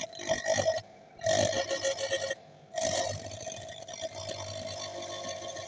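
Bench grinder wheel grinding a hand-held steel steering-assembly end piece, throwing sparks. There are three grinding passes with short breaks between them, and the last pass is the longest and eases off.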